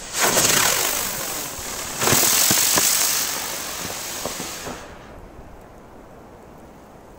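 Large 'butterfly' spinning firework hissing as it spins up and lifts off, with a second, louder surge of hiss about two seconds in and a few sharp cracks, fading away as it climbs out of earshot about five seconds in.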